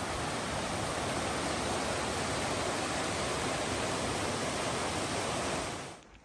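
Rushing water of a mountain stream, a steady, even roar that cuts off suddenly near the end.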